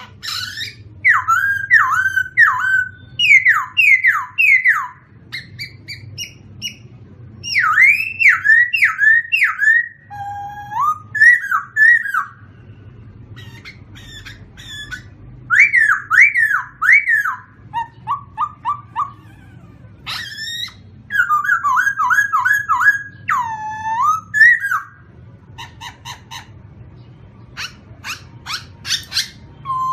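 Songbirds singing: phrases of quick, repeated down-slurred whistles alternate with thin, high chirps and trills, with short pauses between phrases, over a faint low hum.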